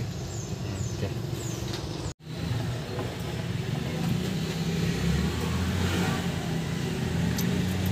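Steady low hum of a vehicle engine idling nearby. It drops out for an instant about two seconds in.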